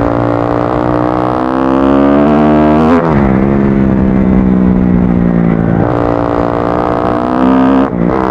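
Kawasaki KX-F dirt bike's single-cylinder four-stroke engine running under throttle. The pitch climbs, drops sharply about three seconds in as it changes speed, holds, and climbs again. It cuts out briefly near the end.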